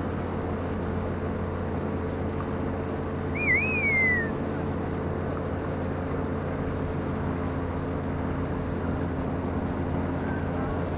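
Outboard motor of a long wooden river canoe running steadily under way, a constant droning hum. About three and a half seconds in, a short whistle wavers up and down, then glides downward.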